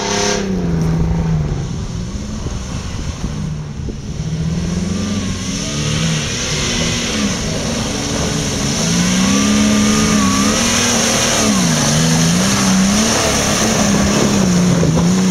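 Off-road 4x4's engine revving up and down over and over, its pitch rising and falling every second or two.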